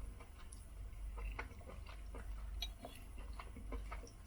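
Faint eating sounds: small irregular clicks and ticks, several a second, over a steady low hum.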